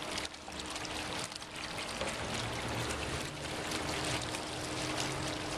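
Water from a glazed ceramic urn fountain running over its rim and trickling and splashing steadily, with a faint low hum underneath.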